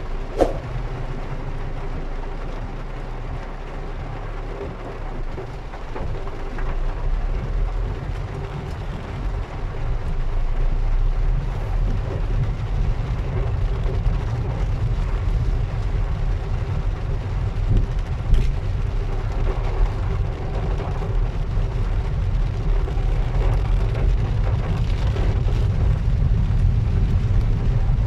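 Heavy rain pouring steadily over a low rumble, growing louder about ten seconds in, with a sharp knock near the start and another about eighteen seconds in.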